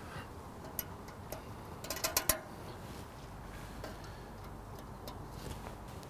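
A few light, sharp metallic clicks and taps from a sensor mounting bracket and its bolt being handled and adjusted on the underside of a bumper, with a quick cluster of them about two seconds in.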